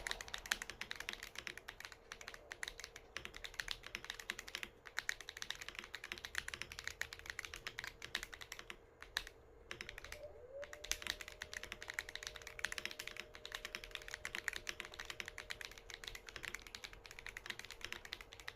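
Typing on a James Donkey A3 mechanical keyboard with stock, unmodded Duhuk Bitter Tea Purple switches: a dense, rapid stream of key clacks, broken by two brief pauses about nine and ten seconds in.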